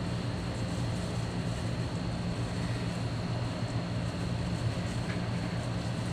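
Steady low mechanical hum with a faint high steady whine over it, unchanging throughout, and a faint tick about five seconds in.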